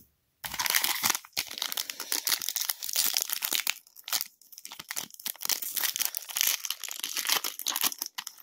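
A trading card pack wrapper being torn open and crinkled by hand, with a dense crackle about half a second in that keeps going with a short lull around the middle.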